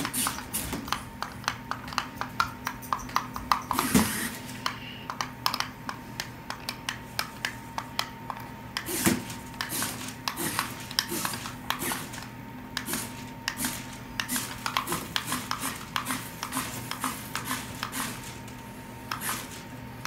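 Buttons of the Air Swimmers shark's handheld remote being tapped over and over: quick, irregular plastic clicks, several a second, over a faint steady hum.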